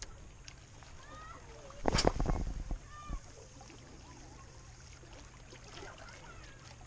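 A cast with a spinning rod about two seconds in: a short, loud swish as the lure is sent out. A few faint bird calls sound around it.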